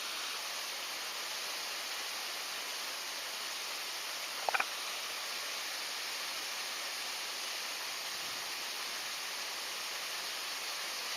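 Steady rush of stream water, with a brief sharp double click about four and a half seconds in.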